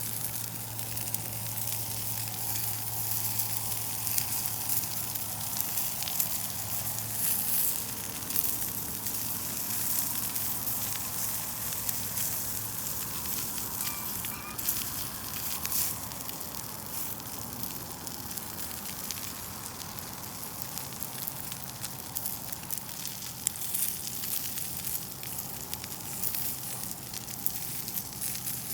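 Pork belly meat rolls sizzling over a wood campfire, a steady hiss with many small crackling pops from the burning wood.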